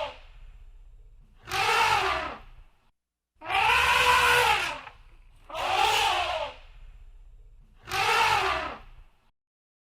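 Elephant trumpeting: four loud calls about a second apart, each rising and then falling in pitch. The second call is the longest.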